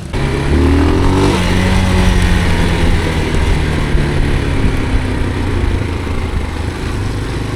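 Off-road motorcycle engine revving up about half a second in, then running steadily under load.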